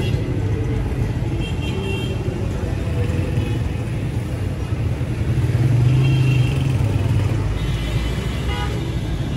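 Busy street traffic: cars and motorcycles running steadily in a dense city street, with one vehicle's engine swelling louder as it passes close about six seconds in, and a few short high-pitched tones cutting through.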